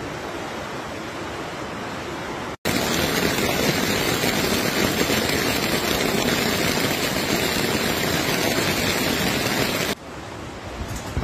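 Floodwater rushing past as a steady noise. It gets abruptly louder about two and a half seconds in and drops back about ten seconds in.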